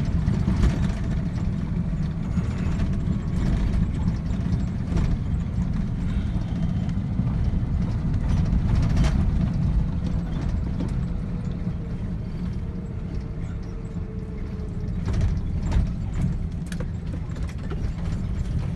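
Truck driving, heard from inside the cab: a steady low engine rumble with frequent rattles and clanks from the body and load bed.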